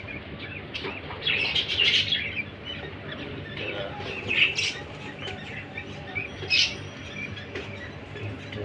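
Budgerigars chirping in several short bursts, the loudest about a second and a half in, with others near four and a half and six and a half seconds.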